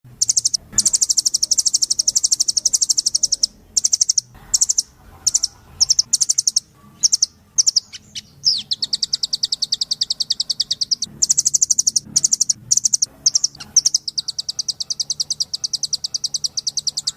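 Velvet-fronted nuthatch singing: long, very fast trills of sharp, high notes in several runs, broken by short pauses.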